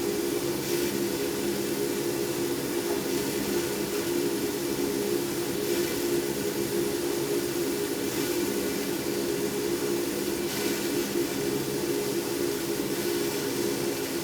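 A steady mechanical hum made of several steady low tones, with a soft hiss that swells briefly about every two and a half seconds.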